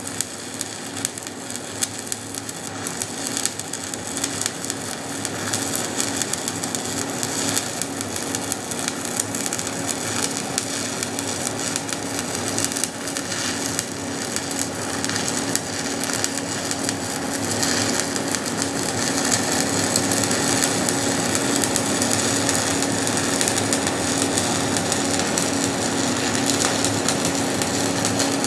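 Stick (shielded metal arc) welding arc with a 7018 electrode on DCEP, crackling steadily as the hot pass is run around steel pipe, with a steady hum underneath. It grows a little louder about two-thirds of the way through.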